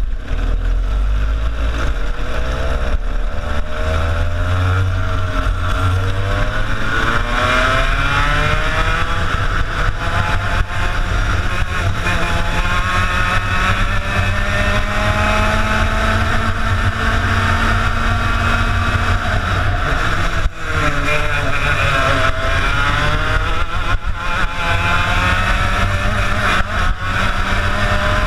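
TKM two-stroke kart engine, heard from on board, revving hard as the kart drives a lap. Its pitch climbs steadily as the kart accelerates away and holds high along a straight. It drops sharply for a moment about twenty seconds in, then climbs again.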